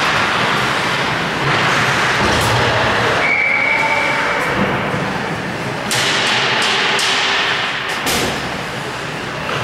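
Ice hockey play on a rink: a steady scraping rush of skates on ice, a short whistle blast about three seconds in, and several sharp clacks of sticks and puck a few seconds later.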